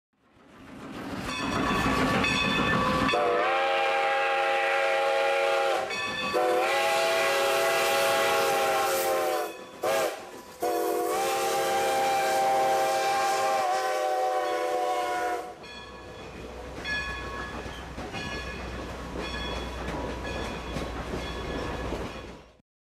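A train approaching with its horn sounding four blasts, long, long, short, long: the grade-crossing warning signal. The rumble and clatter of the cars rolling past follows and fades out.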